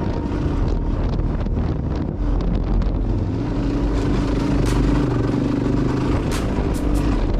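Suzuki DR-Z400S single-cylinder four-stroke dual-sport engine running under way, heard from the onboard camera, holding steady revs through the middle. A few sharp ticks near the end.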